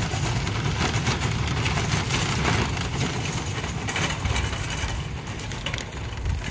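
Wire shopping cart loaded with empty plastic buckets being pushed across asphalt: wheels rumbling, with a continuous rattle from the cart and buckets.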